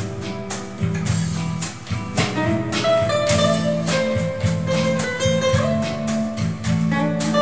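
Acoustic guitar played as a slow instrumental, a steady run of picked notes and chords.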